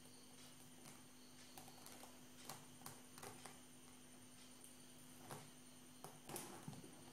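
Near silence: a steady low hum under room tone, with a few faint scattered clicks and taps, a small cluster of them near the end.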